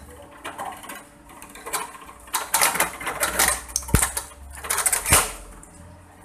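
Electric coconut-shell gouging machine running with a steady motor hum, its spinning cutter head scraping out coconut flesh pressed against it in irregular bursts from about two seconds in to about five, with two sharp knocks.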